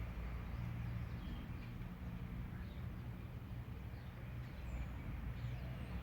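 Birds chirping faintly with short, scattered calls over a steady low rumble.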